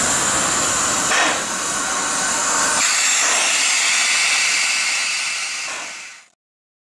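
Px29 narrow-gauge steam locomotive venting steam: a loud, steady hiss with a short surge about a second in, fading out near the end.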